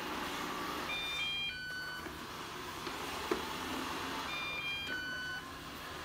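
Ecovacs Deebot robot vacuum running with a steady whir. Twice, about a second in and again about four seconds in, it plays a short tune of three electronic beeps.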